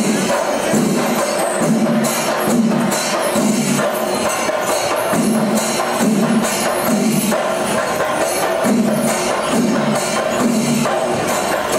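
Traditional Kerala temple percussion ensemble playing: drums beating a steady rhythm of about two strokes a second under continuous clashing cymbals.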